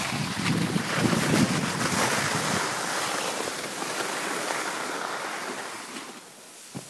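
Rushing noise of riding a snowboard downhill: wind buffeting the microphone and the board sliding and scraping over packed snow. It dies down near the end, followed by a single short knock.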